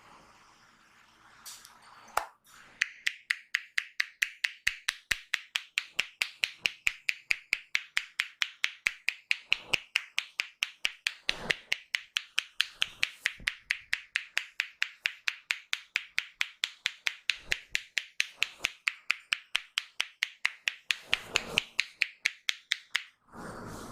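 Percussive head massage by hand: crisp, even slaps or pops about four a second, starting about two and a half seconds in and stopping shortly before the end.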